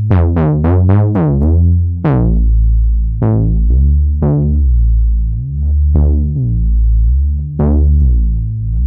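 Cherry Audio LowDown software synthesizer, an emulation of the Moog Taurus bass pedals, playing its plain Bass preset: a quick run of about eight deep notes in the first two seconds, then slower, longer notes. Each note starts bright and quickly turns dull.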